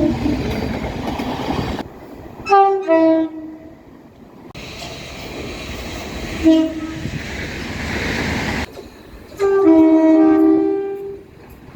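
Train horns sounding in short two-note blasts, high note then low, over the rumble of passing trains. A two-note blast comes about two and a half seconds in, a brief single note follows a few seconds later, and a longer blast with both notes overlapping sounds near the end.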